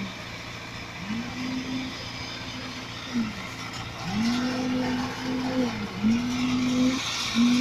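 Truck-mounted concrete pump running as it pumps concrete. Its engine and hydraulic note rises, holds, then drops with each pumping stroke, about every two seconds, with an occasional knock.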